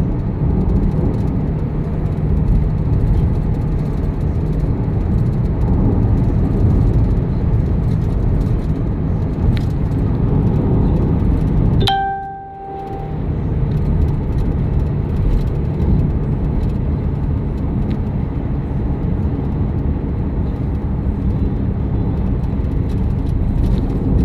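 Car driving on a road, a steady low rumble of engine and road noise heard from inside the cabin, with a brief dip and a short tone about halfway through.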